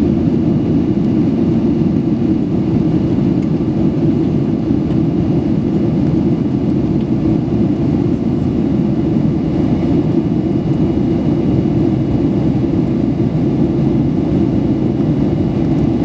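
Steady low rumble of a Boeing 737-800's CFM56 turbofan engines and rushing airflow, heard inside the passenger cabin in flight.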